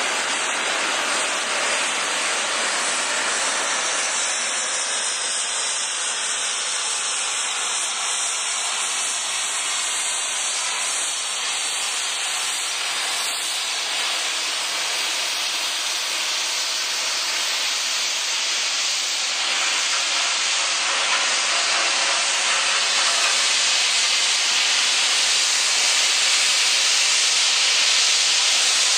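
Steady, loud hiss of steam from a NRZ 16A class 2-8-2+2-8-2 Garratt steam locomotive, getting a little louder in the second half.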